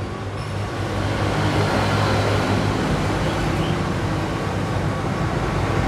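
Steady rumble of motor traffic with a low engine hum, growing a little louder in the first second and then holding level.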